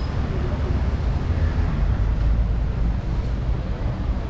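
Outdoor street ambience: a steady low rumble of road traffic, mixed with wind on the microphone.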